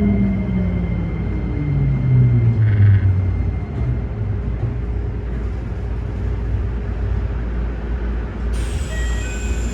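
Keikyu 1000 series electric train's traction motors whining and falling in pitch over the first few seconds, then the steady rumble of the train running on the rails. The motor noise on this set is unusually loud, which the uploader calls an abnormal noise. A few short chime notes sound near the end.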